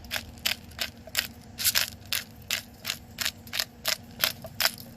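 Hand-cranked pepper mill grinding fresh black pepper, a crackling, ratcheting stroke about three times a second.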